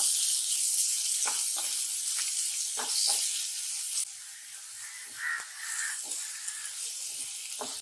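Chopped onion sizzling in hot ghee and oil in a kadai, with a few light knocks. The sizzle drops to a quieter level about four seconds in.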